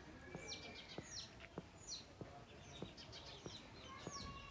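Small birds chirping in quick, repeated falling notes, with faint, even footsteps on a dirt path about every half second or so.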